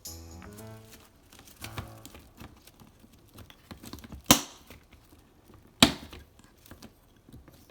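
Soft rustling of handled items, with two sharp snaps about a second and a half apart, one past the middle and one near the end, over faint background music.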